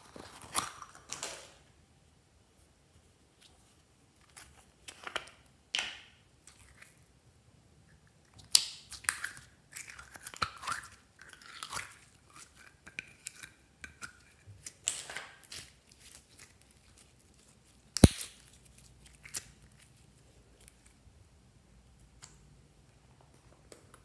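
Hands handling slime and a clear plastic tub: irregular crackles, crunches and sticky tearing sounds as silver glitter slime is worked out onto crunchy foam-bead slime, with quiet gaps between, and one sharp click about three quarters of the way through.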